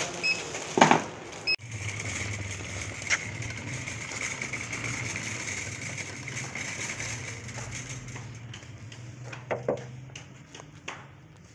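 Two short beeps from a checkout barcode scanner about a second apart, with a sharp clatter of groceries between them. Then a steady low rumble and rattle of a shopping trolley's wheels rolling over brick paving, with a few knocks near the end.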